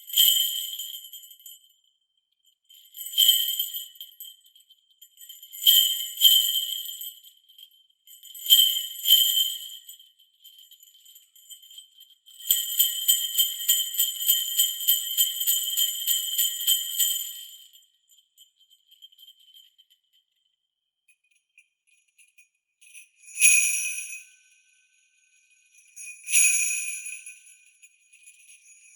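Sleigh bells played solo. A Playwood CB-25 sleigh bell gives single and paired jingling hits, then a continuous jingle of about five seconds that rings away. After a pause, a MEINL SLB25 sleigh bell follows with two single hits and a slightly lower-pitched ring.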